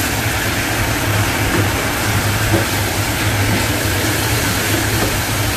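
Kitchen range hood extractor fan running with a steady hum and rush, over chicken and shiitake mushrooms sizzling in a frying pan.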